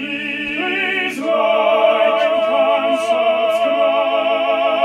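Operatic singing on long held notes with vibrato, the pitch moving to a new note about a second in.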